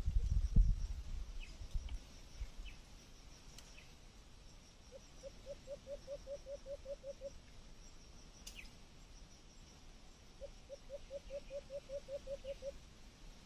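Loud rustling and thumps at first. Then, against faint high insect buzzing, an animal gives two quick runs of about ten low pulsed calls each, around five calls a second, with a few short high chirps in between.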